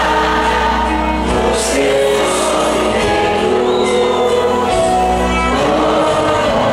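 Campaign jingle playing: music with singing at a steady loud level.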